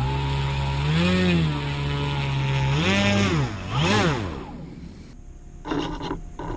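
Razor 3D RC model airplane's motor and propeller running up to a steady pitch, blipped higher three times, then throttled down until it stops a little over halfway through.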